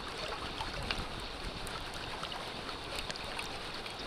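Tongariro River water flowing and lapping right at the microphone, a steady rush with many small splashes and drips.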